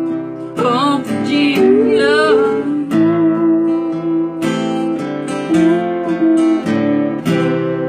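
An acoustic guitar strums chords while a voice sings two drawn-out, wavering notes in the first few seconds. It ends on a last strummed chord that rings and fades.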